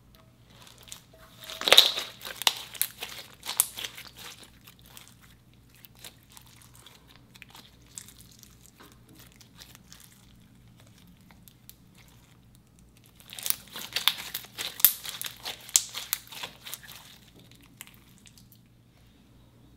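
Clear pink glitter slime being stretched and squeezed by hand, making crackling, popping clicks. The clicks come in two dense bursts, one near the start and one past the middle, with only scattered faint clicks between.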